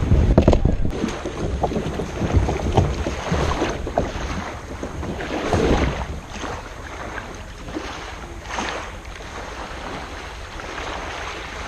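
Kayak paddle strokes swishing and splashing in the water every second or two, with wind buffeting the microphone, strongest in the first couple of seconds.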